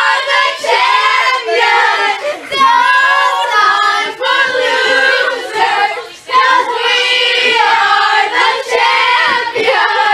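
A group of children singing loudly together, with a short break about six seconds in.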